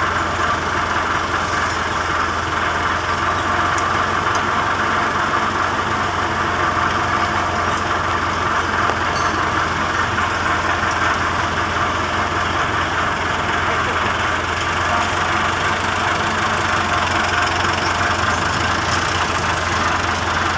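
Diesel engine of heavy equipment idling steadily, an even hum that does not change speed.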